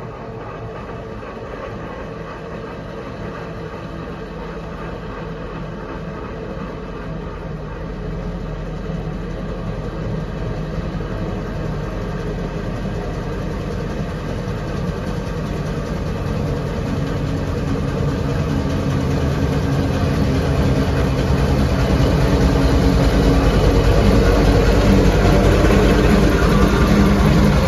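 Steam traction engine driving along a tarmac road, approaching from a distance and growing steadily louder until it passes close by near the end.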